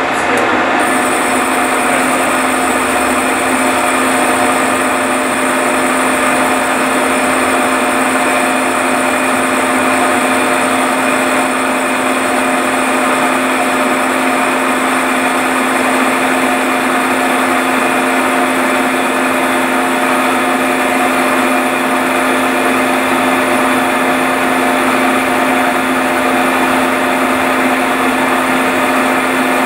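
Milling machine running steadily under a facing cut on a locomotive cylinder casting, its drive giving a constant whine over the cutting noise. A higher whine joins about a second in.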